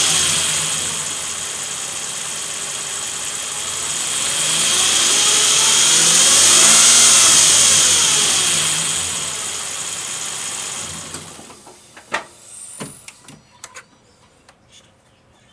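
2007 Nissan Frontier engine running with a strong high-pitched whine, the engine note rising and then falling back. The engine shuts off about eleven seconds in, followed by a few clicks and taps. The owner takes the whine for a common Frontier engine fault covered by Nissan bulletin NTB09-128.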